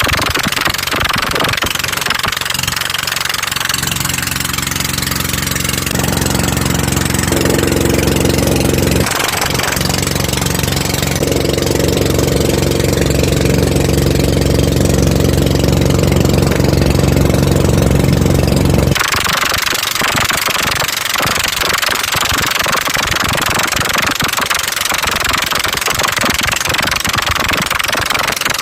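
An engine running steadily. Its note shifts a few times: it steps up between about four and eleven seconds in and drops back about nineteen seconds in. A steady hiss of rushing noise runs under it.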